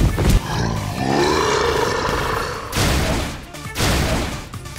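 Action sound effects over background music: a long roar-like cry that rises in pitch and holds, then two crashing bursts about a second apart.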